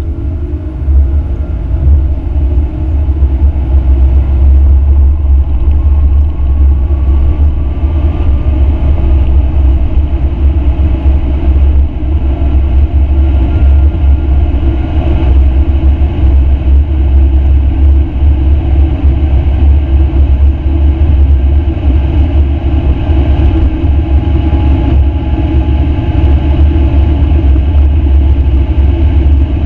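Audi RS7 Performance's twin-turbo V8 at full throttle at very high speed, heard inside the cabin: a loud, steady low rumble of engine, tyre and wind noise. Faint engine tones rise slowly as it pulls through the top gears toward 300 km/h.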